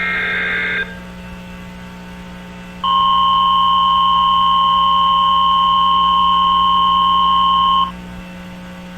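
An Emergency Alert System broadcast's header: a short screechy digital data burst lasting under a second, then after about two seconds a loud, steady single-pitched alert tone held for about five seconds that cuts off sharply. A steady low hum runs underneath.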